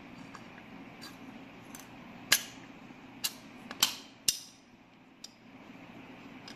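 About five sharp metallic clicks and clinks of small steel parts and tools being handled on a motorcycle gearbox cover's gear-change mechanism, the loudest about two seconds in. A faint steady low hum runs underneath.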